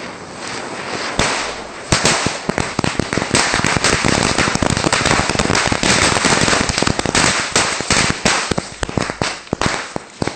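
A ground chakri spinning and hissing as it sprays sparks; from about a second in, the ring of bijli firecrackers around it starts bursting, a rapid, dense string of sharp bangs over the continuing hiss.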